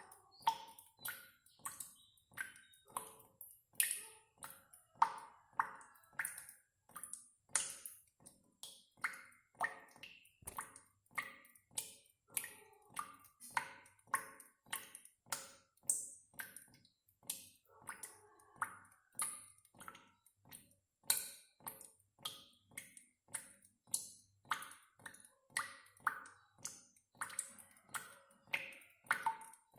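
Water dripping: a steady, uneven run of short ringing plinks, about two drops a second, each at a slightly different pitch.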